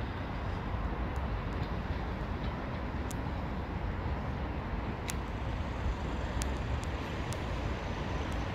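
Steady low rumble of a slow-moving diesel push-pull train, its Class 47 locomotive powering at the rear, with a few faint sharp clicks.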